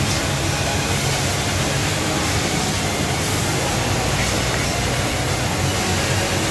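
A two-spindle CNC wood lathe and the woodworking machinery around it running: a steady, even rush of noise with a low hum underneath.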